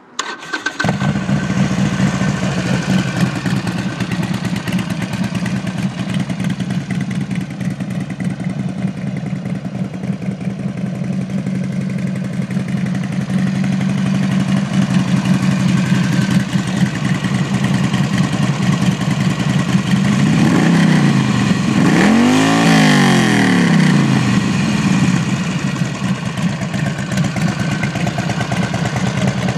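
2007 Harley-Davidson Sportster's air-cooled 45-degree V-twin starting up about half a second in, then idling steadily. About twenty seconds in it is revved twice, the pitch rising and falling each time, before it settles back to idle.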